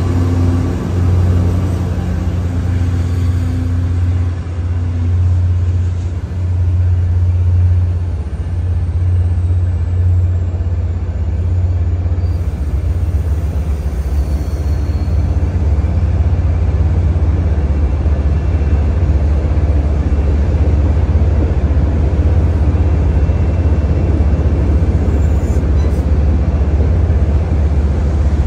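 MBTA F40PH-3C diesel locomotive 1057 and its commuter coaches passing slowly. The locomotive's diesel engine gives a pulsing low throb for about the first twelve seconds, then the rumble of the coaches rolling by takes over and stays steady.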